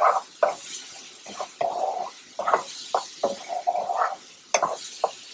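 Diced onion and bell peppers being stirred in a nonstick frying pan, the utensil scraping and tapping irregularly against the pan over a faint sizzle of the vegetables sautéing in oil.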